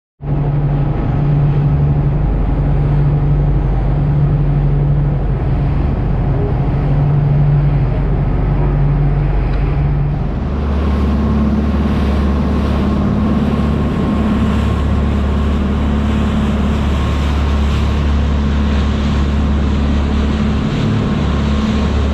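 Fishing boat's engine running steadily, a loud low drone. Its tone changes about ten seconds in.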